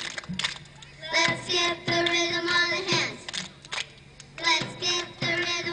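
A group of children singing together in unison, in short phrases with held notes and brief breaks between them.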